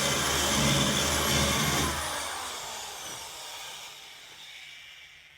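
Handheld power cutting tool running at full speed with a high whine, released about two seconds in and spinning down, its whine falling in pitch as it fades out.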